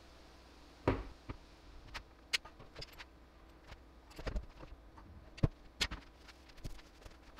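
Stainless steel sink knocking and clunking against the countertop as it is set into the cutout and shifted by hand, in scattered sharp knocks and metallic taps. The loudest knock comes about a second in, another near the middle.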